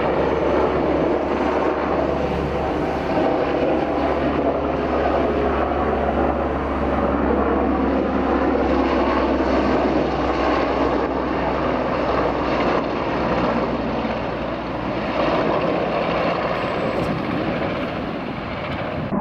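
Aircraft flying overhead: loud, steady engine noise with no clear beat.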